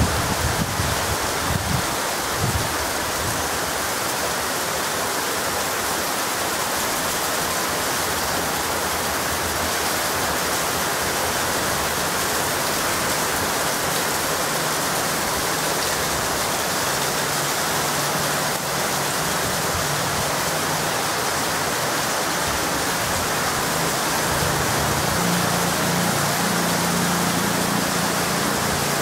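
Heavy monsoon rain pouring down steadily, a dense even hiss on trees and roofs. Wind buffets the microphone in the first couple of seconds.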